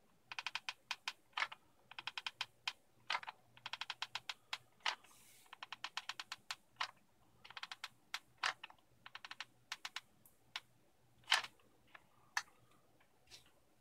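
Hot glue gun's trigger feed mechanism clicking in quick runs of faint clicks as the trigger is squeezed to push glue out, with short pauses between runs and a few single clicks near the end.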